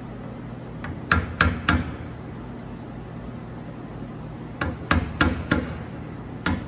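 Hammer tapping a flat screwdriver to drive down the locking tab on a nut of a tractor distributor's advance-weight plate. Sharp metal taps come in quick runs about a third of a second apart: three about a second in, four around five seconds in, and one more near the end.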